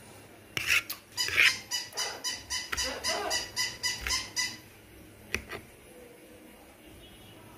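Battery-powered plush toy dog running on the tile floor, giving a rapid run of short, even, high-pitched pulses, about four a second, for about three seconds. Two louder cries come first, about half a second and a second and a half in.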